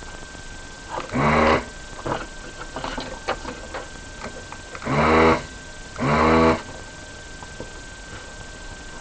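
ZD-985 desoldering station's vacuum pump buzzing in three short bursts, one about a second in and two more near five and six seconds in, as it sucks molten solder through the desoldering gun. Light clicks and taps come between the bursts over a faint steady high whine.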